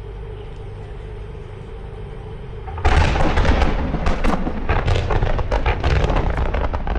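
Large fireworks barrage: a low steady rumble, then about three seconds in a sudden, dense volley of booms and sharp cracks as many shells go off at once, keeping up rapidly after that.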